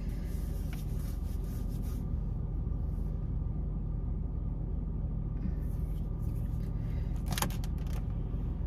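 Car engine idling, a steady low hum heard from inside the cabin, with one brief sharp click about seven seconds in.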